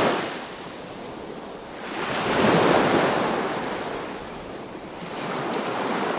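Ocean surf washing in and drawing back, swelling about every three seconds.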